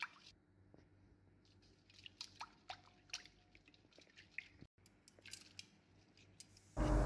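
Faint, scattered clicks and light scrapes of a spatula stirring a thin milk marinade in a metal bowl, with near silence between them.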